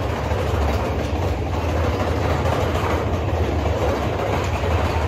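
Big Thunder Mountain Railroad mine-train roller coaster cars running along the track, a steady rumble and rattle heard from inside a moving car.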